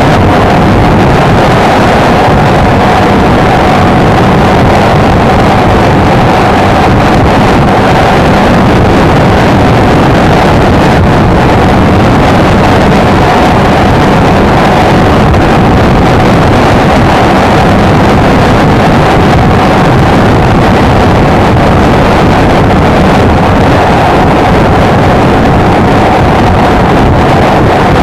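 Honda XLR125R's single-cylinder engine running steadily while riding, recorded on board with loud wind rushing over the microphone.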